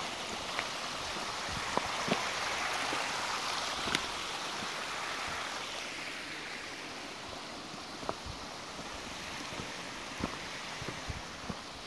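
Rushing creek water with footsteps crunching on a dirt and leaf-litter trail. The rush swells a couple of seconds in and fades from about the middle on, while the steps land irregularly throughout.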